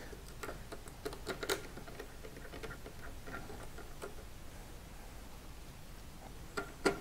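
Light clicks and taps of fingers and a small precision screwdriver on a motherboard's metal M.2 heat sink. A few come in the first second and a half, fainter ticks follow, and a sharper double click comes near the end.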